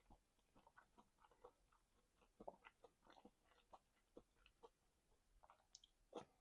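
Faint close-miked chewing: a run of soft, irregular mouth clicks and smacks as food is chewed, with a louder smack near the end.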